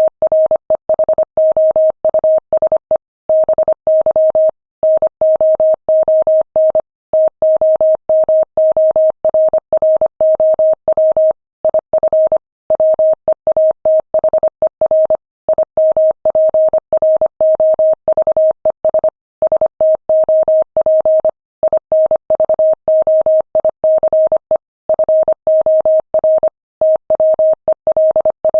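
Morse code at 25 words per minute: a single steady-pitched tone keyed on and off in quick short and long beeps, with brief gaps between letters and longer ones between words.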